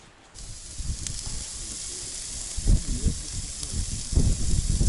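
Partridge breasts sizzling on a portable gas grill: a steady frying hiss that starts suddenly about half a second in. A few low thumps and rumbles come over it near the middle and the end.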